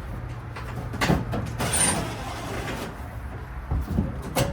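Knocks and a brief scraping rustle from car parts being handled during disassembly, over a low steady hum.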